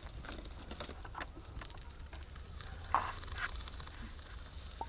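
Quiet outdoor ambience in grassland: a steady thin high-pitched hum, short high chirps and soft rustles and taps in the grass, with one louder brief rustle about three seconds in.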